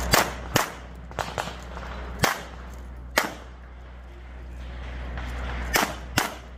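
A string of about eight pistol shots from a competition handgun, in uneven pairs and singles with gaps of up to two and a half seconds between groups.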